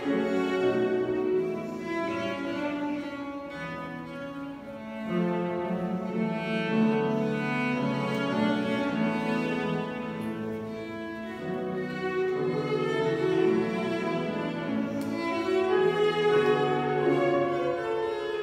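Solo cello bowed, playing a melody of held notes that change step by step, easing off for a moment about four seconds in before swelling again.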